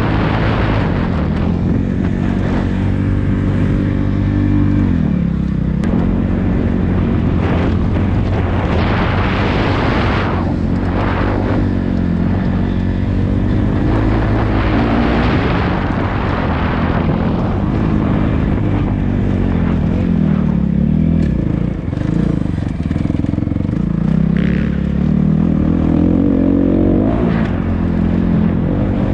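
Dirt bike engine revving up and down while riding a motocross track, its pitch climbing and dropping over and over with throttle and gear changes. Bursts of rushing noise come and go over it, loudest about one, ten and fifteen seconds in.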